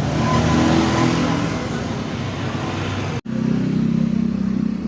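Motorcycle engine running steadily, cut off abruptly for an instant about three seconds in and then running on.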